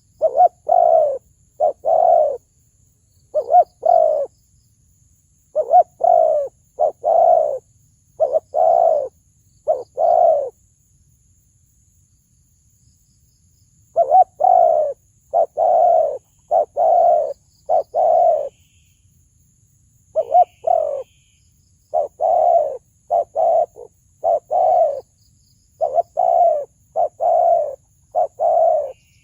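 Spotted dove cooing in repeated phrases of deep, resonant coos, two to four notes at a time, with a pause of a few seconds near the middle.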